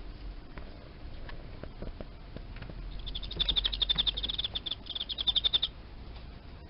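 A male Teleogryllus field cricket chirping: two bursts of fast, clear, evenly pulsed chirps about three seconds in, with a short break between them. A few faint ticks come before.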